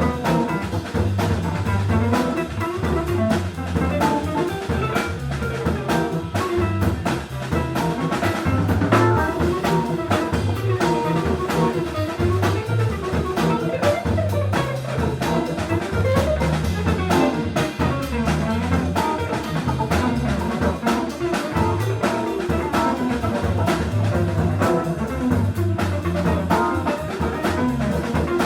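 Instrumental jazz-funk music with drum kit, bass and guitar, playing at a steady, loud level.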